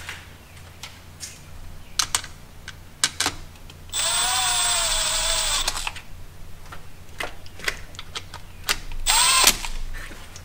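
Cordless power tool running down timing chain tensioner bolts on a Ford 4.6 L 2-valve V8: a motor whine of about two seconds some four seconds in, then a shorter half-second burst that rises in pitch near the end. Light clicks of metal parts and tool handling come in between.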